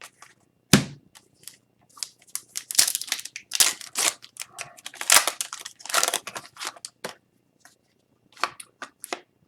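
Hockey card pack being handled: a foil wrapper crinkling and tearing, with cards rustling. A sharp snap comes about a second in, then a dense run of crackles and rustles that thins out near the end.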